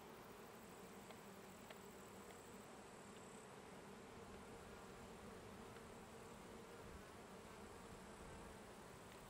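Faint, steady hum of bees buzzing.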